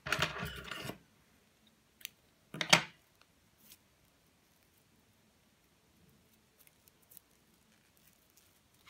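Handling noises as paper cord is tied into bows by hand: a short clatter in the first second, a click at about two seconds, and a louder knock just under three seconds in, then faint rustling of the cord.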